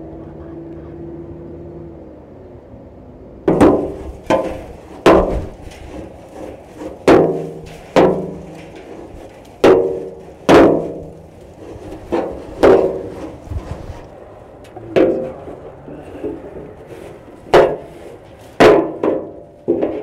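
A steel wrench clanking against galvanized sheet steel: about fifteen sharp, ringing metallic knocks at uneven intervals, beginning a few seconds in, as the wrench jabs and scrapes at packed straw. A low steady hum runs in the first two seconds.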